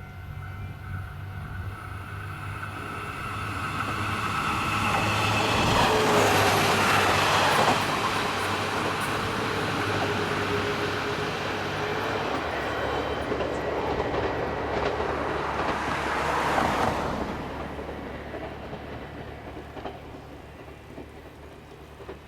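A train passing over a level crossing: it builds up, is loudest for about ten seconds from around six seconds in as the cars run past, then fades away.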